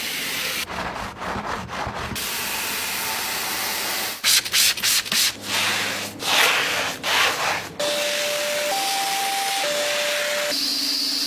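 Car-cleaning sounds one after another: a hose spray nozzle hissing as water washes over a door sill, then brisk scrubbing strokes on a foamed car floor mat, then a wet vacuum running with a steady whine as it sucks the foam off the mat.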